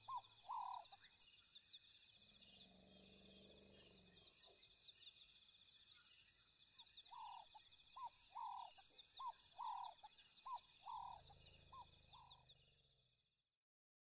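Faint outdoor nature ambience: a steady high chirring with rapid ticks under a series of short, falling animal calls, about one or two a second, heard briefly at the start and again in the second half. It all fades away just before the end.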